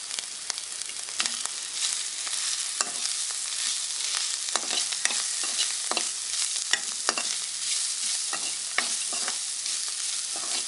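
Mashed boiled potato being stirred into frying onion and spice masala in an oiled wok. A spatula scrapes and knocks against the pan in irregular clicks over a steady frying sizzle.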